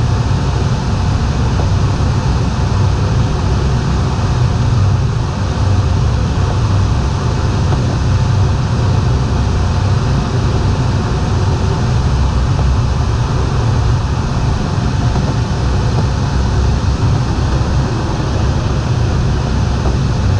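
Steady rush of air with a low rumble inside an ASK21 two-seat glider's cockpit under aerotow, unchanging throughout.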